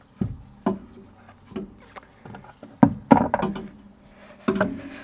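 Irregular metal knocks and clunks as a rear suspension strut is worked into place inside a car's wheel arch. The loudest is a pair of knocks about three seconds in.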